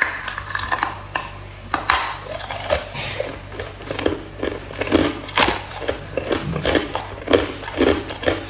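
Ice being chewed close to the microphone: sharp cracks and clinks, then steady crunching at about two bites a second.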